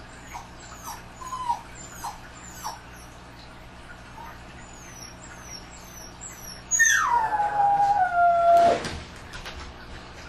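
A dog howling: one long howl about seven seconds in that drops in pitch, is held for about two seconds, then trails off. Before it come faint short whimpers and high-pitched calls.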